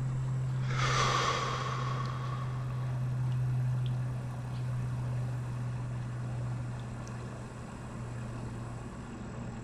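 A steady low motor hum, like a vehicle engine running. About a second in, a brief rushing sound falls in pitch and fades.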